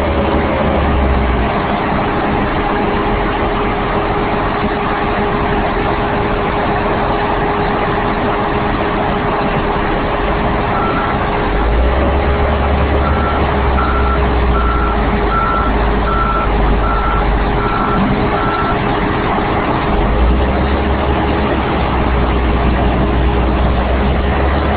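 Large diesel engine of a track-mounted horizontal grinder running steadily, with a constant whine over its noise. A backup/travel alarm beeps about ten times in an even rhythm through the middle. The deep rumble swells twice, about halfway in and again near the end.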